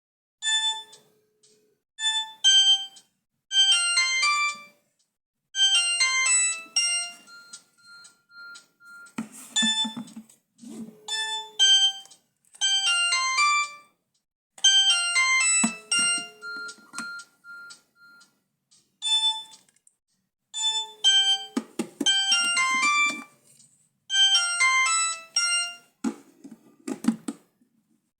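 Basic mobile phone ringing with an electronic ringtone melody: quick bright note phrases that repeat in bursts with short pauses between, with a few low dull bursts under some of them.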